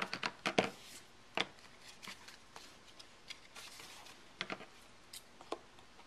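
Paper-crafting handling noises: irregular short, sharp clicks and snips as cardstock and a border sticker strip are handled and trimmed, several close together in the first second and a few more scattered later.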